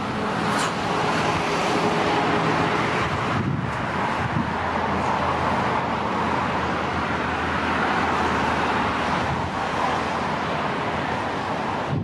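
Steady road traffic noise, swelling and easing every few seconds as vehicles pass.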